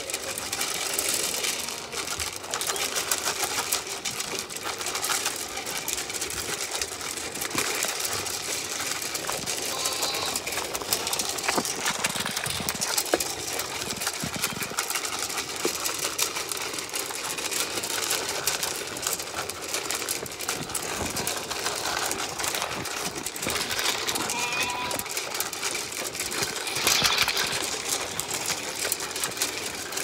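Zwartbles ewes eating feed pellets from a metal trough close to the microphone: a dense, continuous clatter of crunching and pellets clicking against the metal.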